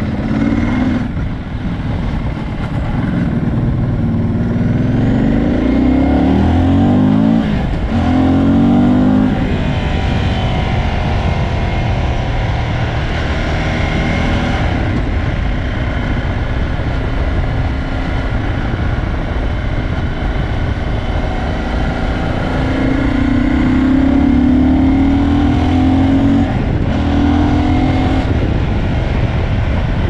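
Cagiva Elefant 750's air-cooled Ducati V-twin under way, its revs climbing through the gears. A sharp drop about seven and a half seconds in marks a shift, followed by another short pull, a stretch of steadier cruising, and a second long rise in revs near the end.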